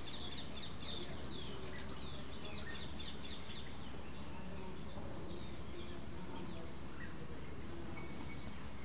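Small birds chirping in quick, repeated high notes over a steady outdoor background hiss; the chirping is dense at first, thins out in the middle and picks up again at the very end.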